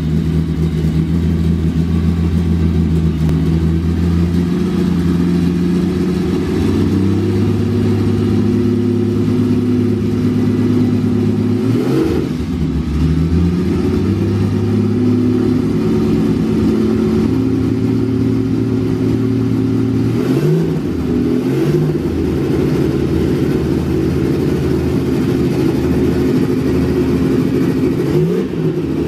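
1978 Porsche 935/78 'Moby Dick' race car's 3.2-litre turbocharged flat-six running at idle, hand-blipped from the engine bay: short rises in revs about twelve seconds in, twice around twenty seconds in, and near the end.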